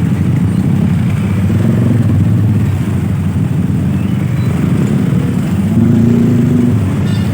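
Motor vehicle engines running in a steady, loud low rumble, with a brief higher drone near the end.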